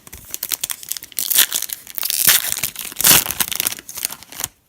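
Crinkling and tearing of a foil trading-card pack wrapper being ripped open and handled, in several loud rustling bursts.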